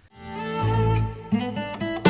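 Background music: an acoustic guitar piece with plucked notes, fading in about half a second in.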